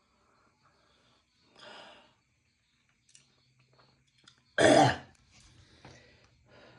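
A person hacking to clear the throat: a softer throat-clearing about a second and a half in, then one loud, short cough about four and a half seconds in. The hacking is an attempt to dislodge a small chicken bone stuck high in the throat.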